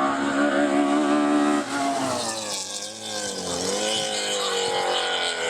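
Hillclimb race car engine at high revs. The pitch falls sharply about a third of the way in as the driver lifts, dips lowest around the middle, then rises again as the car accelerates and holds high to the end.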